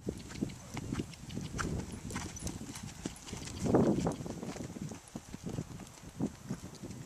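A Holsteiner gelding's hoofbeats as it canters on dry, dusty dirt, an irregular run of dull thuds. They are loudest about four seconds in, as the horse passes close.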